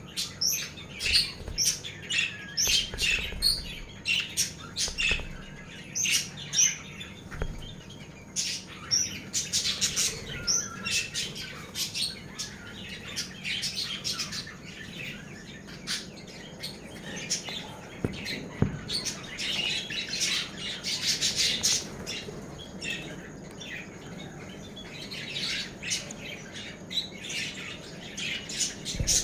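Many birds chirping and calling over one another in a dense chorus of short, repeated chirps.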